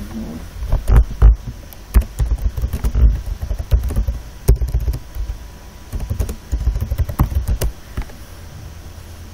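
Typing on a computer keyboard: irregular key clicks with dull thumps, stopping about eight seconds in.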